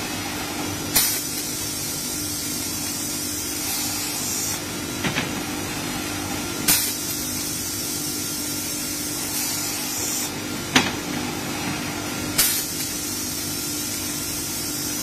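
Industrial sanding machine running with a steady hum and hiss, broken by a handful of sharp knocks.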